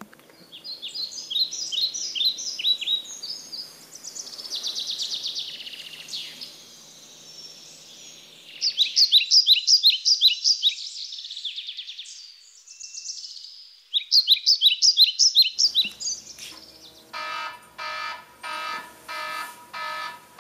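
Songbirds singing in runs of quick descending chirps and trills. About sixteen seconds in, the birdsong stops and an electronic alarm clock starts beeping in quick repeated groups.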